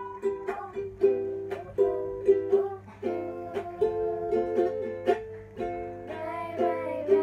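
Ukulele strummed in an even rhythm, about three strokes a second, under a held, slightly wavering sung melody.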